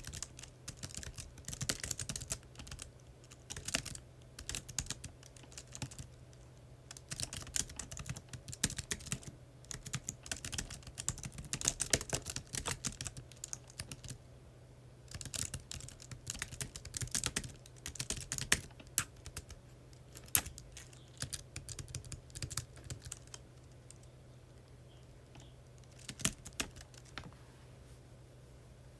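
Typing on a computer keyboard: runs of quick key clicks with short pauses, thinning to a few scattered keystrokes near the end.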